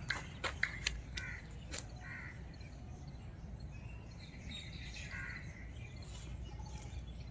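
Crows cawing faintly a few times. A handful of light clicks come in the first two seconds.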